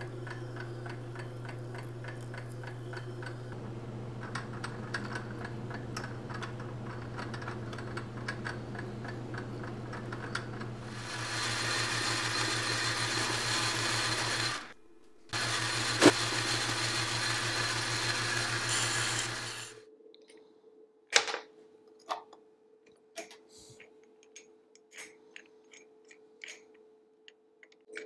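Metal lathe running with a steady hum while a cutting tool turns a small metal part in the chuck; the cutting gets louder about eleven seconds in, with one sharp click, and the lathe stops about two-thirds of the way through. After that, only scattered light clicks and taps.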